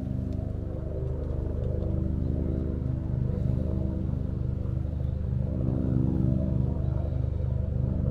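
Siamese cat purring steadily while being stroked along its back.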